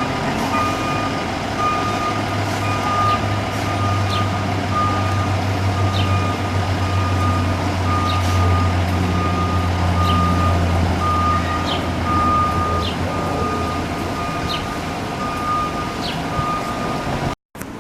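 A large truck's reversing alarm beeping steadily in an even on-off rhythm, over the low, steady drone of its diesel engine.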